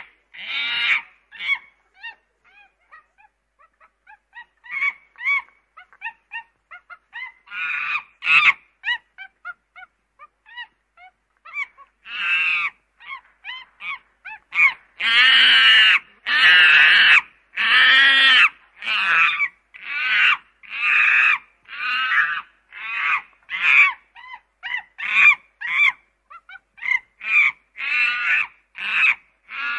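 Waterfowl calling: a long run of short nasal honks and quacks, one after another, with a louder stretch of longer calls around the middle.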